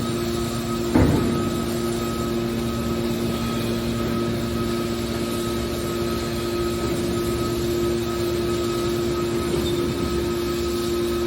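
Hydraulic scrap aluminium baler's power unit running with a steady hum, with one sharp knock about a second in.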